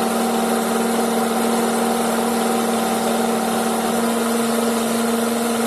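Honda CR-V engine idling, heard close to its serpentine belt tensioner pulley, with a steady hum of several tones; two of the higher tones drop out about four seconds in. The noise comes from the belt tensioner pulley, whose bearing is worn.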